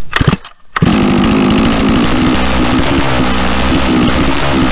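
Holzfforma G660 chainsaw's 92 cc two-stroke engine, breathing through a modded Bulletproof Performance muffler, running unloaded at steady high revs. After a brief quiet gap it comes in abruptly, just under a second in.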